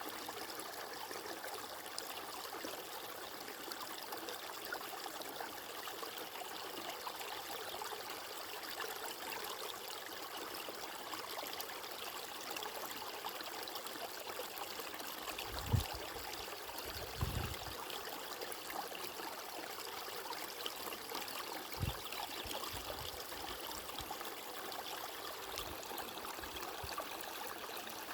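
Running water flowing steadily, like a stream, with an even rushing and trickling. A few soft low thumps come through about halfway in.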